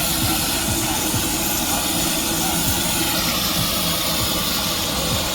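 Antique steam traction engine running, with a steady hiss of steam.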